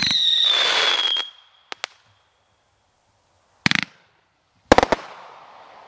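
A 500-gram "We've Got Your 6" fireworks cake firing. A shot goes off with a loud burst and a whistle that falls slightly in pitch over about a second, followed by two small pops. Then come a quick cluster of bangs and, about a second later, another cluster that trails off into fading crackle.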